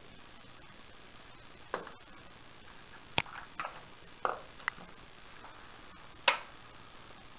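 Handling noises from a small bait pot and tackle being picked up and handled: about six scattered sharp clicks and taps, the loudest about three and six seconds in.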